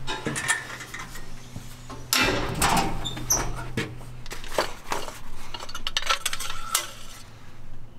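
Metal clanks and knocks on a John Deere combine: boots on the steel platform and steps, a sheet-metal engine-bay access panel swung open, and the engine oil dipstick pulled for an oil check. The loudest clatter comes about two seconds in, and a low steady hum runs under it until about halfway.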